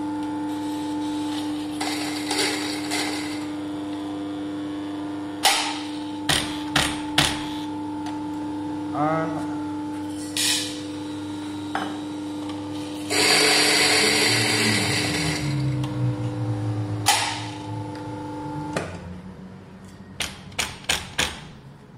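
Commercial coffee burr grinder running with a steady motor hum while it is purged: a few spare beans poured into the hopper are ground through with a loud crunching for about two seconds, then the motor shuts off. A few sharp knocks on the grinder follow near the end.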